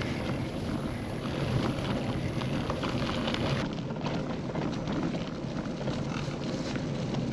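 Wind rushing over the microphone of a moving bicycle, with the tyres crunching steadily over a gravel trail.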